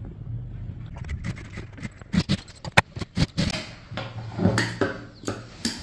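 Irregular clicks, taps and scraping from fabric and sewing gear being handled while a blouse side seam is stitched, over a low steady hum.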